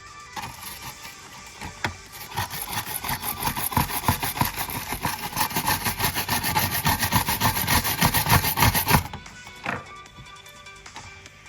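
Rapid back-and-forth scrubbing on keyboard parts, starting about two seconds in and stopping suddenly about nine seconds in, over background music.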